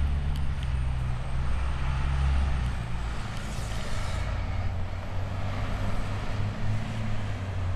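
City transit bus engine running as the bus turns and pulls away, a steady low hum, with a short hiss about three seconds in.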